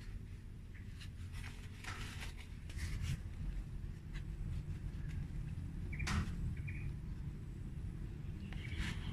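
Gloved hands working potting soil into a plastic plant pot: scattered short crackles and rustles of crumbling soil and handled plastic, loudest about six seconds in, over a steady low rumble.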